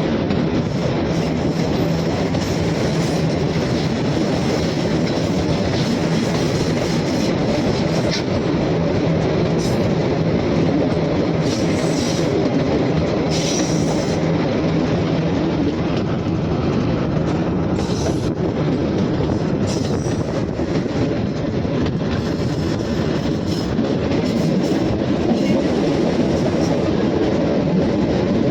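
Shimla narrow-gauge toy train running along the track: a steady rumble with a low hum and occasional sharp clicks from the wheels on the rails.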